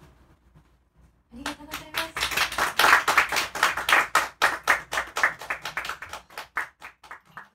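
A small audience clapping. It starts about a second in together with a brief voice, builds quickly, then thins to a few last claps and stops.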